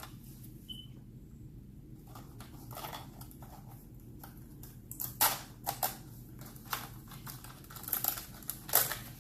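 Hands opening a toy's cardboard box compartment and its small plastic-wrapped accessory: scattered soft rustles, taps and clicks, a few louder ones about five seconds in and near the end, over a low steady hum.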